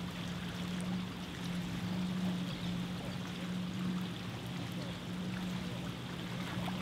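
Water sloshing and lapping around the pier pilings, a steady wash of noise with a constant low hum underneath.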